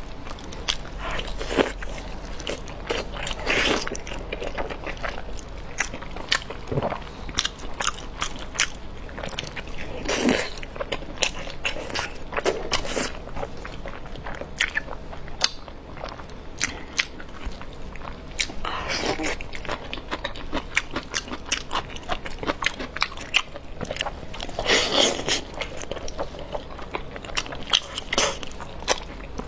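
Close-miked eating of braised beef tendon: steady biting and chewing with many small mouth clicks, and a few louder bites along the way.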